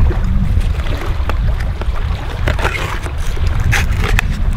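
Wind buffeting the microphone in a steady low rumble, with the crinkle and crackle of a clear plastic blister pack being handled and pulled open between about two and a half and four seconds in.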